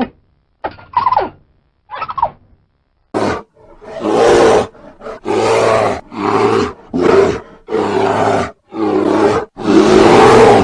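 A large animal giving a run of about seven loud, rough calls in quick succession, starting about three seconds in. Before them come three short, falling calls.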